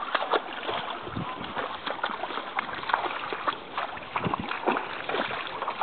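River water splashing and sloshing: many short, irregular splashes over a steady rush of moving water as animals move through it.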